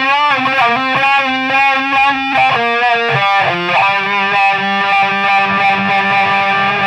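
Distorted electric guitar played through a Cry Baby wah pedal: a quick run of notes with the tone sweeping up and down as the pedal rocks, then a held note left ringing.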